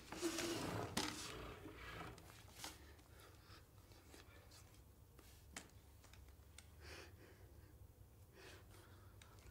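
A man's heavy breathy exhalations and sighs in the first two seconds, then fainter breaths with a few light ticks and taps.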